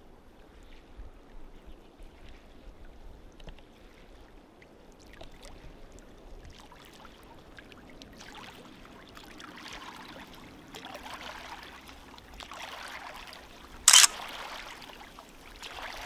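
Small waves lapping at the shore in soft, repeated washes that grow stronger in the second half. A single sharp click, the loudest sound, comes about two seconds before the end.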